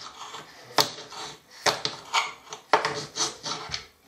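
A kitchen knife chopping dark chocolate on a glass chopping board. The blade hits the board in several sharp knocks at uneven intervals, with scraping between them.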